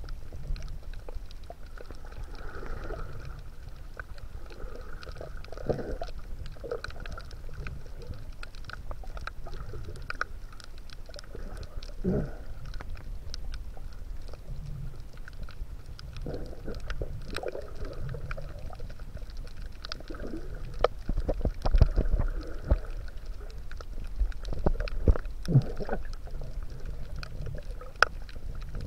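Muffled underwater sound picked up by a camera beneath the sea surface: a steady low rumble of water moving against the housing, with many scattered clicks and crackles and occasional louder knocks.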